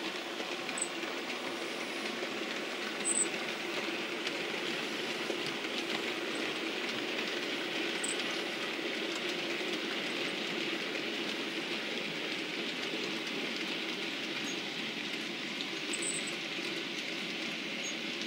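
OO gauge model goods train running along the layout's track: a steady whirr and rumble of motor and wheels on the rails, with a couple of sharp clicks, about three seconds in and again near the end.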